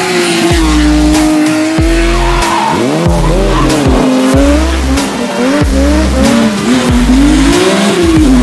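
BMW M3 E36 rally car's inline-six engine, its revs rising and falling again and again as it is driven hard, mixed with electronic music that has a heavy bass.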